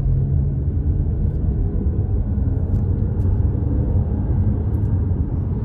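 Four-wheel-drive Jeep driving along a paved road, heard from inside the cabin: a steady low rumble of engine and tyre noise.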